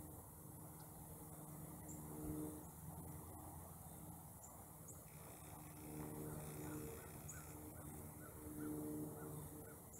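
Faint outdoor ambience: a low droning hum that swells and fades a few times, with a faint run of quick bird chirps, about three a second, in the second half.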